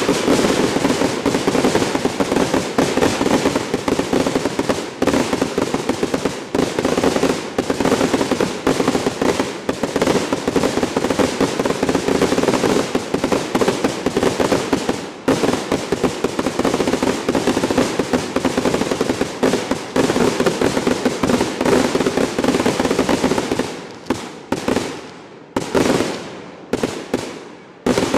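A 100-shot Bless firework cake firing: a rapid, unbroken barrage of loud shots, thinning about three-quarters of the way through to a few separate reports, the last one just before the end.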